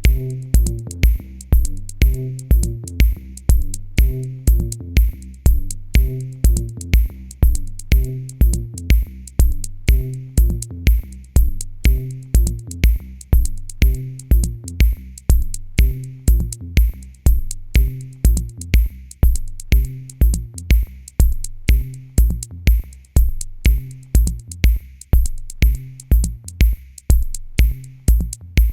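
Electronic music with a steady drum-machine beat, about two beats a second, over a repeating bass line.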